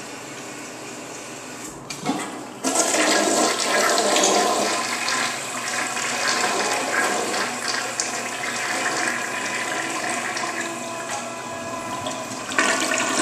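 Toilet flushing: about two seconds in, water starts rushing into the bowl and swirls down the drain, and the rush swells again near the end.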